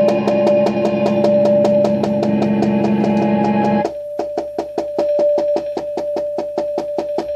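Improvised electronic music from a Roland percussion pad and electronic devices: a fast, even pulse of about five clicks a second over several held drone tones. About four seconds in, the low drone stops and it gets quieter, leaving one held tone under the clicks.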